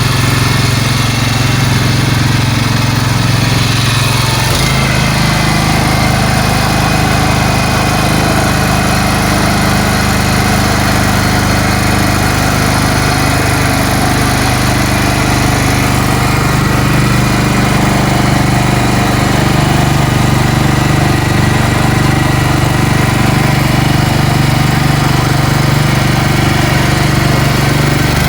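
A small boat's engine running steadily at a constant speed, with a slight change in its note about four and a half seconds in.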